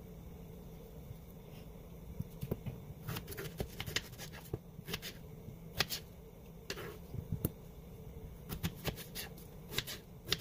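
Kitchen knife slicing a raw potato: irregular sharp taps as the blade cuts through, starting about two and a half seconds in, over a low steady hum.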